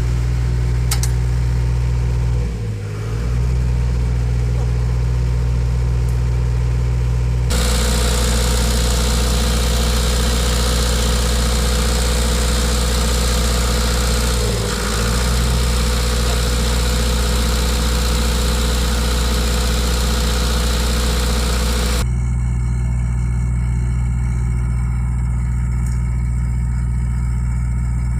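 Engine of a 45 kVA diesel generator set running steadily, its speed dipping briefly twice, about three seconds in and again about fifteen seconds in.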